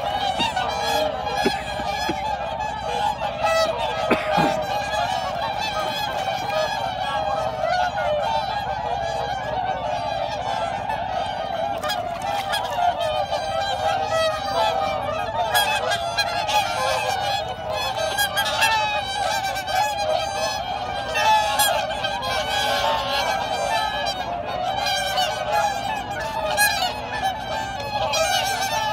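A large flock of whooper swans calling together: a steady chorus of many overlapping honks.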